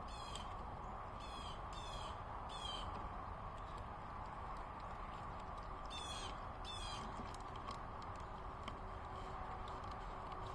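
A bird calling outdoors in short calls: several in the first three seconds and two more about six seconds in, over a steady background hiss.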